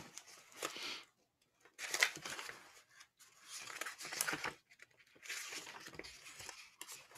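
Sheets of paper rustling and crinkling in four or five short bursts, as pages are leafed through.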